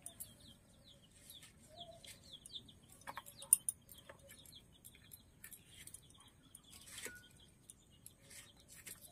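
Small birds chirping in quick short notes and chickens clucking, fairly quiet. A few sharp clicks come from a tomato being sliced on a boti blade, the loudest about three and a half seconds in.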